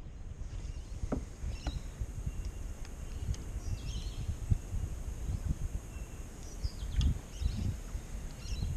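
Outdoor river ambience: faint, short bird chirps now and then over an uneven low rumble, with a couple of light knocks in the first two seconds.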